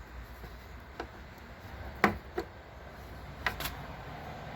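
A handful of light, sharp clicks and taps, two of them close together around two seconds in and two more around three and a half seconds in, over a low steady rumble.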